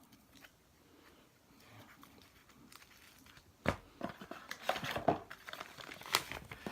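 Handling of the unboxed multitool's packaging and sheath: faint rustling at first, then from about three and a half seconds in a series of sharp clicks and rustles as the items are moved about.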